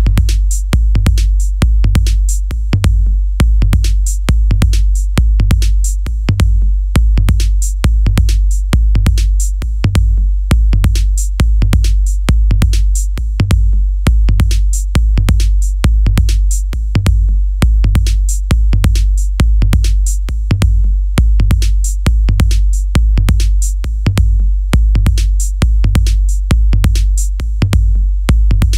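Programmed electronic dance drum loop at 135 beats per minute: a deep kick drum on every beat, with crisp hi-hats and sharp hits in between, keeping a steady groove.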